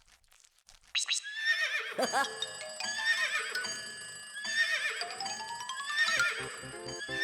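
A cartoon animal-call sound effect with a wavering, falling pitch, repeated about once a second over light children's music, after a short rising sweep about a second in.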